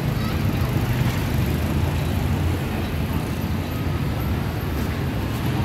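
Steady low rumble of road traffic, a busy street's background noise.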